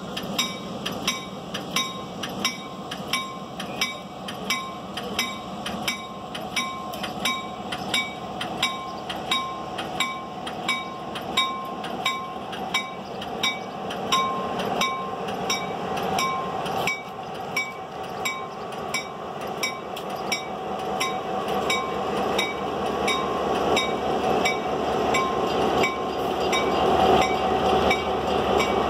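A diesel locomotive's bell ringing steadily, about three strokes every two seconds, on the EMD F-unit Clinchfield 800 as it pulls out at low speed. Under the bell, the rumble of the diesel and the train's wheels grows steadily louder through the second half as the locomotive comes past.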